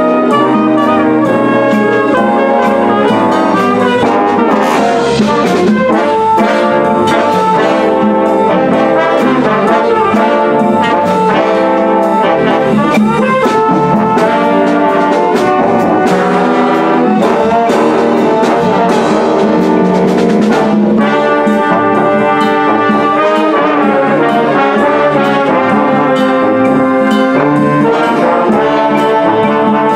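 School concert band playing a piece straight through, brass to the fore, with sustained chords and struck percussion notes along the way.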